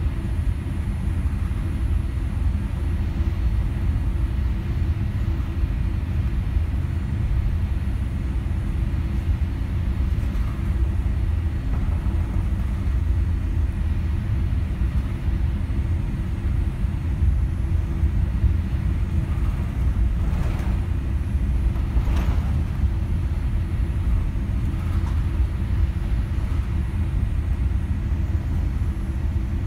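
Boeing 787-8 cabin sound while taxiing: a steady low rumble of the GE GEnx-1B engines at low taxi thrust and the aircraft rolling along the taxiway, with a steady hum over it. Two faint knocks come about two-thirds of the way through.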